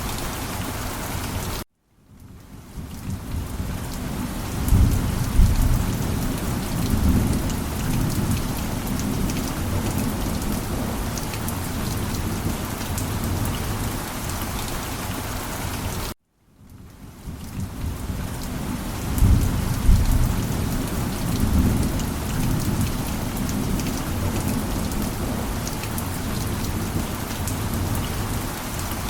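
Steady rain with low rolling thunder. Twice the sound cuts out completely for a moment, fades back in, and a thunder rumble follows a few seconds later, the same passage repeating like a short loop.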